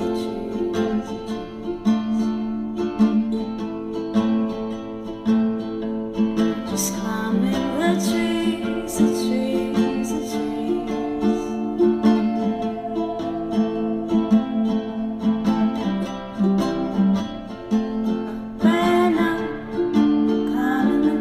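Background music led by a plucked acoustic guitar, its notes changing steadily, with some singing in it.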